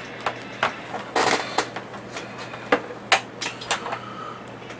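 Irregular sharp clicks and short rustles of a twisted-pair network cable and its crimped RJ45 plug being handled.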